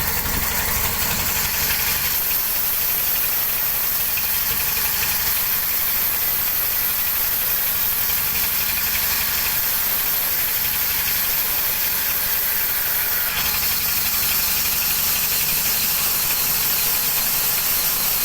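Big sawmill machinery running steadily, a low rumble under a loud high hiss, its tone shifting about two seconds in and again about thirteen seconds in.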